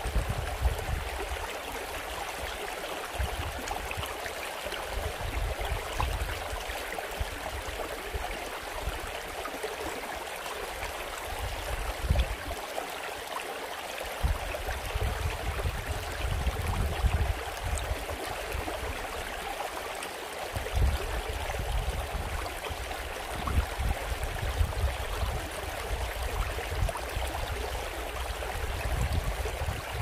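Shallow rocky mountain stream running over stones and through a small riffle: a steady rush and ripple of water, with a low rumble that comes and goes underneath.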